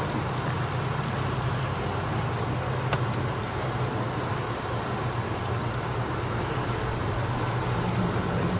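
A vehicle engine idling steadily, a constant low hum under an even hiss.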